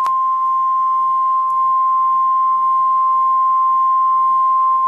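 NOAA Weather Radio 1050 Hz warning alert tone: a single loud, steady pure tone held for about five seconds, then cut off abruptly. It is the alarm signal that announces an emergency alert, here a special marine warning.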